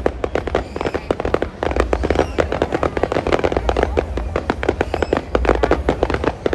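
Fireworks going off in a dense, continuous barrage of bangs and crackles, many per second.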